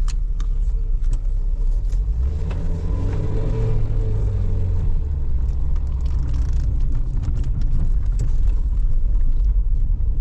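A car driving, a steady low rumble of engine and road noise.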